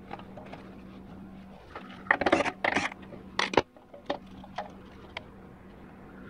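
Metal parts clattering and scraping as bolts and pieces are worked loose by hand from a 4L60E transmission valve body: two loud bursts of clatter in the middle, then a few sharp single clicks. A steady low hum runs underneath.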